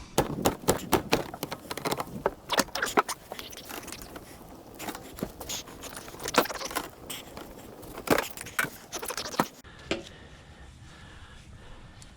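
Metal scrap clanking and rattling as it is worked loose and handled, a quick run of sharp knocks at first, then scattered knocks and scrapes that die down near the end.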